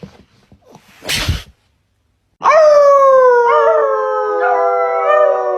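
Dog howling: one long howl starting about two and a half seconds in, held and sliding slowly down in pitch. A short burst of noise comes about a second in, before the howl.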